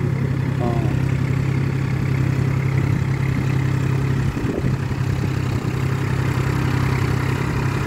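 New Holland 4710 tractor's diesel engine running steadily under load as it pulls a rotary tiller through a flooded paddy field, puddling it. The engine hum stays at an even pitch and level throughout.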